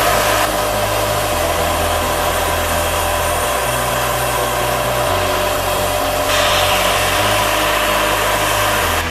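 Large radio-controlled scale model helicopter hovering and flying low, its motor giving a steady whine over the rush of the rotor.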